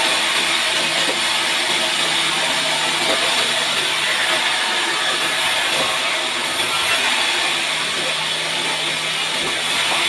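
Large band sawmill running as a bark-covered log is fed through its blade, the blade sawing through the wood with a steady noise over a low motor hum.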